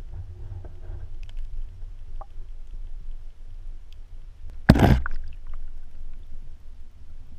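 Underwater handling noise from a GoPro in its waterproof housing: a steady low rumble with a few faint ticks, then a single short loud knock nearly five seconds in as the housing strikes the cryoconite sediment on the floor of the meltwater hole, stirring it up.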